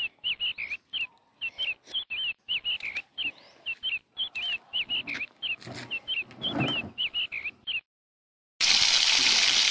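A small bird chirping over and over, short up-and-down notes about three a second. Near the end it stops, and after a moment of silence a loud, steady hiss begins.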